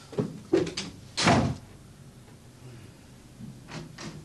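A room door being shut: a few light knocks of the door and latch, then a louder thud about a second in.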